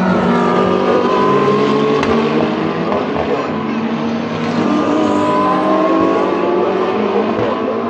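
Endurance race car engines running at speed on a circuit, several engine notes overlapping, with a rising engine pitch as a car accelerates about a second in and again around five seconds in.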